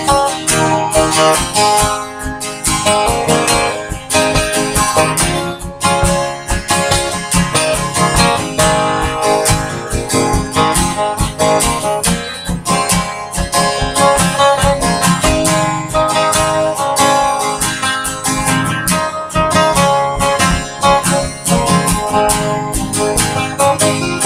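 Instrumental break of a string band: acoustic guitar strumming with picked notes over it, no singing.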